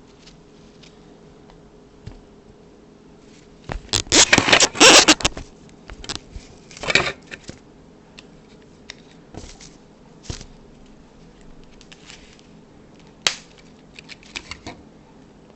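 Crackling and rustling of tape and cardboard fan blades being handled and taped onto a plastic tap light. The loudest crackly burst comes about four seconds in, a shorter one about seven seconds in, then scattered clicks and taps.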